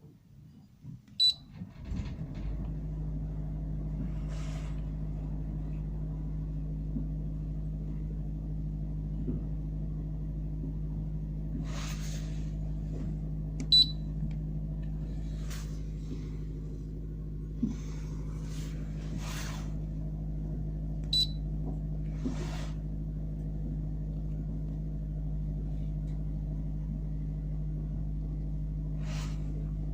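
Onboard yacht machinery starts about two seconds in and then runs with a steady low hum. A short, high beep sounds three times over it, with a few scattered clicks.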